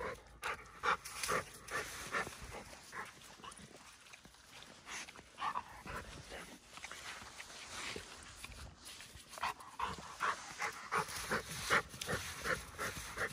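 A Rottweiler panting in short, quick breaths that come faster and more regularly near the end.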